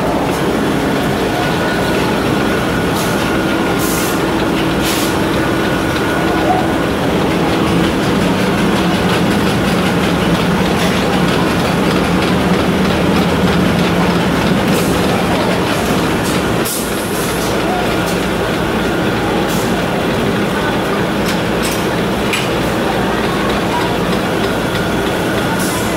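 Workshop machinery running: a steady loud mechanical rumble with a low hum, from a rubber-cutting lathe and the machines around it, with a few sharp clicks.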